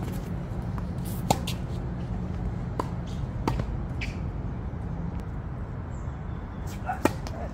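Tennis balls struck by rackets and bouncing on a hard court: a handful of sharp pops, the loudest about a second in and near the end, over a steady low rumble.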